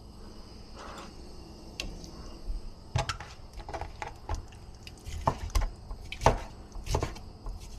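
Kitchen clatter: irregular knocks and clicks of dishes and food containers being handled on a counter, starting about three seconds in.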